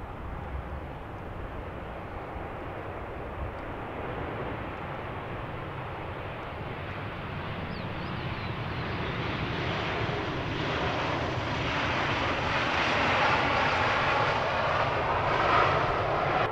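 Boeing 737-800's CFM56-7B turbofan engines running as the airliner taxis and turns onto the runway, growing steadily louder through the second half with a whine that comes to the fore.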